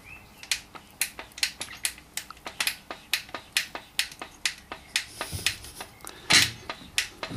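Trolley jack being pumped to lift a car, with a quick, even run of sharp clicks about four a second, followed by a louder clunk about six seconds in.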